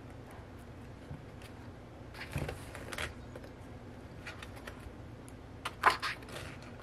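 Photo cards and printed paper items being handled: scattered light taps and rustles, with a short burst of handling about two and a half seconds in and a sharper double clack about six seconds in.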